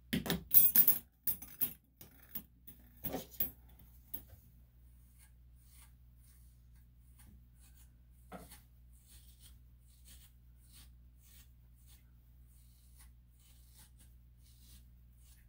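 A quick cluster of sharp clicks and knocks in the first four seconds, one more click about eight seconds in, then only faint scattered ticks.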